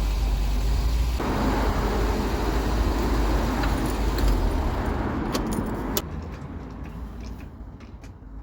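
1990 Ford Fiesta Mk3's engine running with its rear exhaust box off, growing louder about a second in and cut off about six seconds in, followed by a few light clicks.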